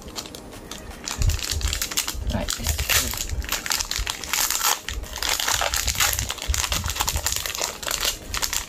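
Foil booster-pack wrapper crinkling as it is pulled and torn open by hand, a dense run of crackles from about a second in.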